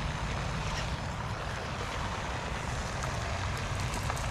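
Steady wind and water noise with a low, even hum underneath, and a few faint light clicks from about three seconds in.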